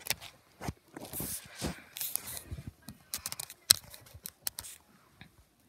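Rustling, scraping and clicking handling noises from things being handled up close, with a sharp knock a little before four seconds in. The noises thin out near the end.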